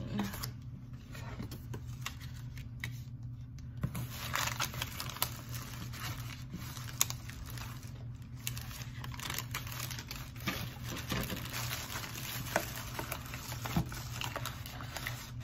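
Advent calendar packaging crinkling and rustling with scattered small clicks and taps as items are rummaged through and handled in a box, over a steady low hum.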